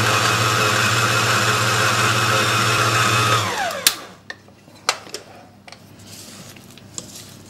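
Electric stand mixer running steadily as it works a stiff dough in a steel bowl, then switched off about three and a half seconds in and winding down. After that, a few light knocks against the bowl.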